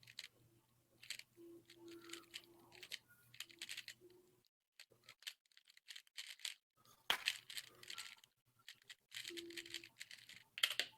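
Rubik's Cube being turned fast in a speedsolve: rapid, faint clicking and clacking of the plastic layers in irregular runs, with a lull of about two seconds near the middle.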